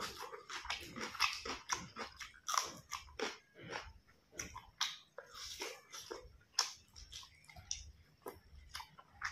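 A person chewing and biting food, with many irregular wet mouth clicks and smacks, eating rice, pork curry and boiled broccoli by hand.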